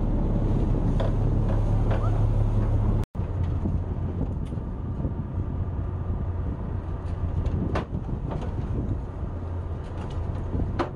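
Fishing boat's engine running steadily with a low drone, under wind and sea noise, with a few faint knocks. The sound cuts out for an instant about three seconds in.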